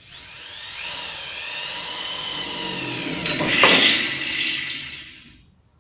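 PROMAKER 550-watt corded hammer drill in drill mode at medium speed, driving a metal bit into a square iron tube. The motor's whine rises as it spins up, then holds steady. A sharp click comes about three seconds in, the cutting grows louder and rougher, and the drill stops shortly before the end.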